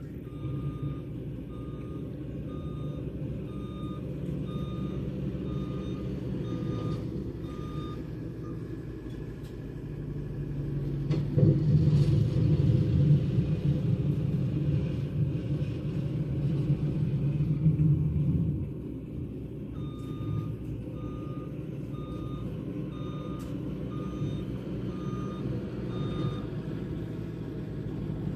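Compact track loader plowing snow: its diesel engine runs steadily, louder for about eight seconds in the middle, while its reversing alarm beeps about twice a second during the first nine seconds and again for several seconds near the end as it backs up.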